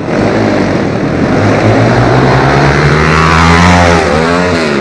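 Pit bike engine revving hard, its pitch climbing as it speeds up, then a few quick rev blips that rise and fall near the end as the bike leaves the ramp and is in the air.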